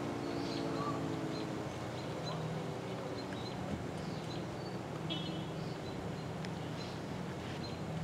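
ACA Hurricane 130 MKII siren winding down, its tone falling in pitch and fading out within the first two seconds. Birds chirp throughout over a faint steady low hum.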